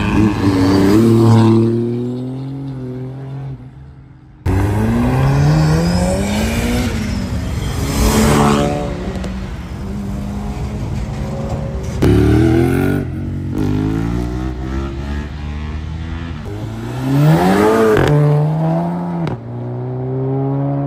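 Drag cars' engines revving and accelerating hard, the engine note climbing and dropping again and again. It comes in several short stretches that cut off abruptly.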